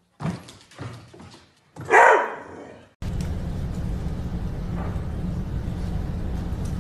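Dog running on a hardwood floor, its claws tapping, then one loud bark about two seconds in. After that, a steady low hum.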